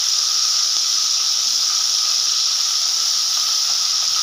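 Ginger-garlic paste sizzling in hot oil in a kadhai as it is sautéed, a loud, steady hiss.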